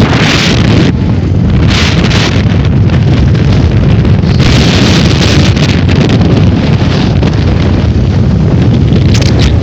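Loud wind buffeting the microphone: a steady low rumble with gusts of hiss that come and go every second or two.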